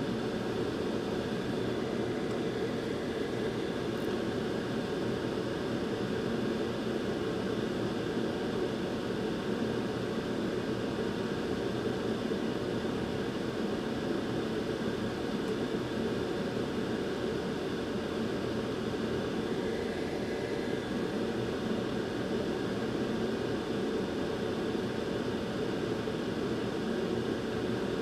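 Hot air rework station blowing a steady stream of air, a constant hiss and hum with no change, while reflowing solder balls on GPU memory pads.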